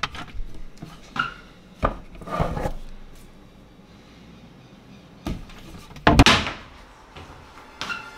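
Kitchen handling noises: scattered knocks and clunks, with a louder scraping clatter about six seconds in, as a tin of powdered coffee is taken out and set down on a stainless steel counter.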